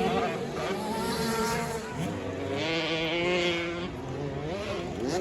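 Several motocross dirt bikes running at once, their engines buzzing and revving, the pitch climbing and dropping through gear changes.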